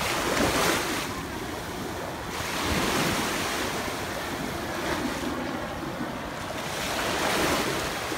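Small ocean waves breaking and washing up the sand, swelling and fading every few seconds, with wind rumbling on the microphone.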